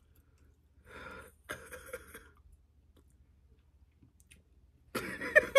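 A person makes two short breathy vocal noises, like a sharp exhale or cough, about one and two seconds in, amid near quiet. A voice starts up near the end.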